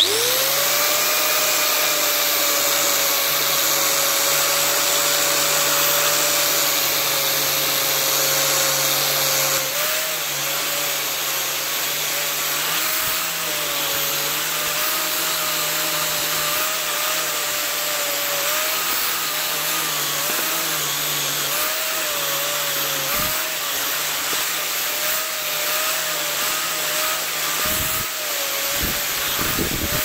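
Angle grinder fitted with a wire wheel spinning up and running at speed. From about ten seconds in its whine wavers and dips under load as the wheel scrubs the oxide off a freshly cast copper ingot.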